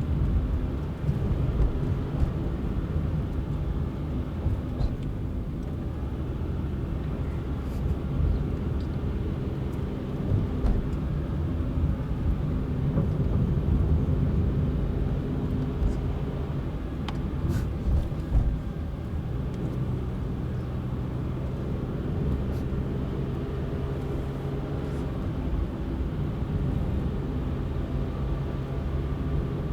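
Car engine and road noise heard from inside the moving car: a steady low hum with a few brief knocks from bumps in the road about halfway through.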